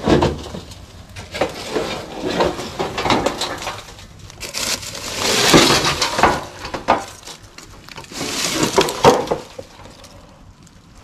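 Irregular crunching and knocking of wood and debris being moved about by hand and underfoot, with louder scraping bursts about five seconds in and again around eight to nine seconds.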